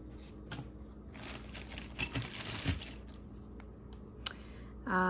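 Costume jewelry being handled and sorted: small clicks and short clattering rattles of beads and metal pieces knocking together, with a sharp click near the end.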